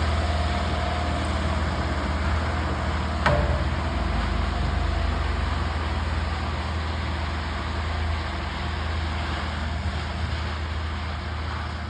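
An engine running steadily with a low drone, and one sharp clank about three seconds in.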